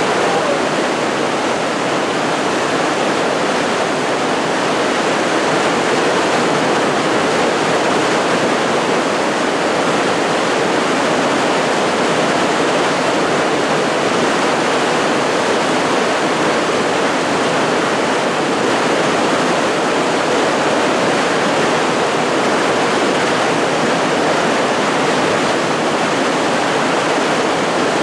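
Steady rushing of whitewater as a small waterfall cascades over rock ledges.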